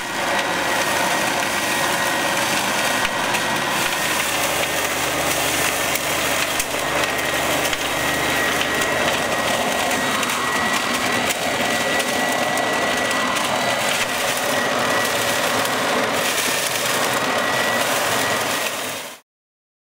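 Stihl corded electric blower-vac in vacuum mode running steadily with a high fan whine, sucking up and shredding dry leaves and litter into its collection bag. The sound cuts off suddenly near the end.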